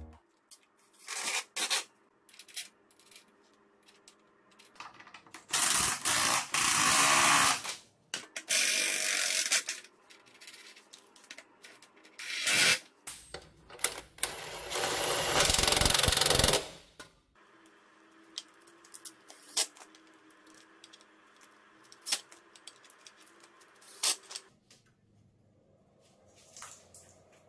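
Cordless DeWalt impact wrench running in four bursts of one to three seconds, hammering nuts on a motorbike's rear wheel and shock mount. Scattered clicks and clanks of tools between the bursts.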